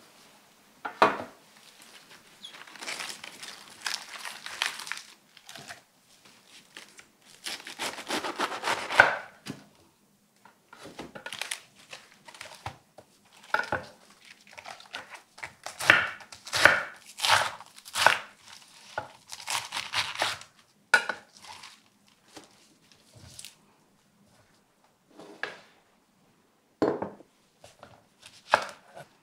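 Crisp head lettuce torn apart by hand, with crunching and crackling of the leaves, broken by sharp knocks on a wooden cutting board. Near the end a knife cuts through chilli peppers against the board in a couple of quick chops.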